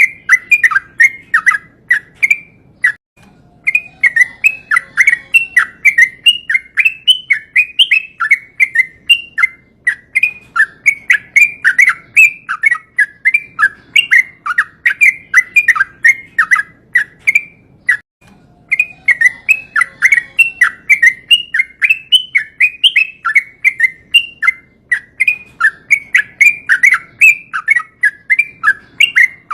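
Yellow-vented bulbul (trucukan) singing a long run of rapid chirping notes, several a second, with brief breaks about three seconds in and again about eighteen seconds in.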